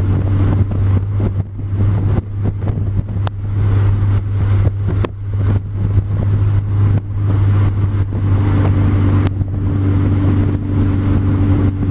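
A car's engine droning steadily while under way, heard from inside the car, with frequent short knocks over the drone.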